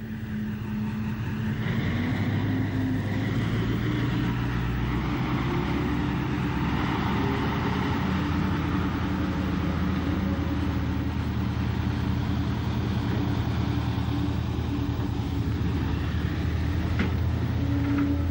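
A mainline diesel locomotive pulling a passenger train away from a station. The engine's pitch climbs over the first couple of seconds and then holds a steady, loud running note.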